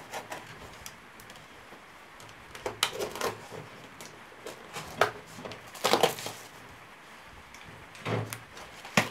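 A box knife slitting a cardboard box open, then the cardboard flaps being pulled open and handled. The sound comes as a handful of separate scrapes and rustles with quiet between them, loudest about three and six seconds in.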